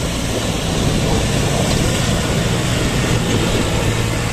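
Diesel tractor engines running steadily under load as a bogged John Deere 5050D is pulled out of the mud by a Kubota tractor.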